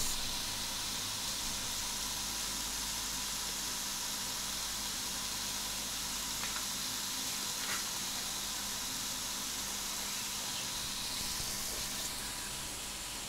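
Pork steaks sizzling in a closed Tefal OptiGrill Plus contact grill, a steady, even hiss.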